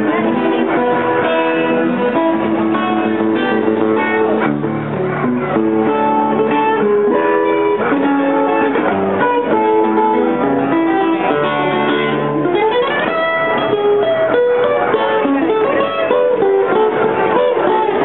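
Acoustic guitar music: a plucked melody over strummed chords, playing continuously.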